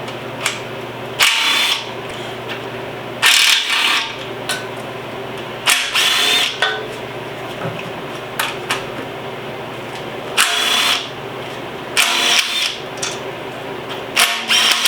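Handheld power tool, a cordless drill-type driver or ratchet, run in about six short bursts of roughly half a second each over a steady low hum, as used when spinning out a K24A2 engine's oil pan bolts.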